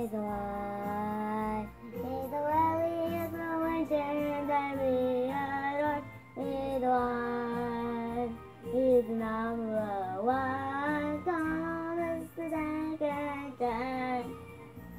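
Young boy singing alone: long held notes that bend up and down, in about five phrases with short breaks for breath between them.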